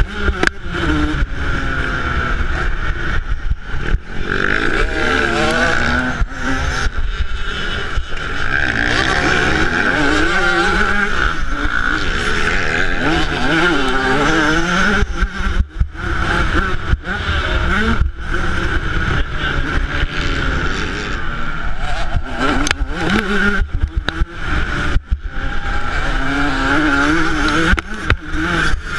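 Yamaha YZ125 two-stroke single-cylinder engine revving hard and dropping back again and again as the throttle is opened and closed, with many brief sharp dips in level.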